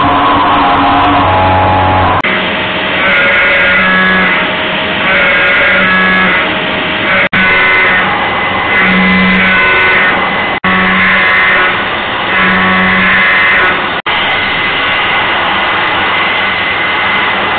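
Kieninger WPB 16 HF CNC milling machine cutting a large metal plate: a steady spindle-and-cutter whine with several tones that swell and fade every second or two as the cutter works along the plate. The sound breaks off briefly and suddenly four times.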